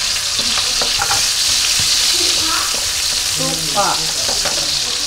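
Chopped onion, garlic and ginger sizzling steadily in hot oil in a wok, stirred with a spatula that clicks and scrapes against the pan.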